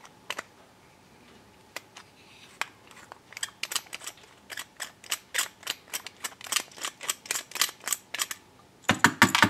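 Light clicks and ticks from a slotted screwdriver turning a brass jet out of a carburetor body. A few scattered clicks at first, then a quick run of about four a second, with a louder cluster near the end.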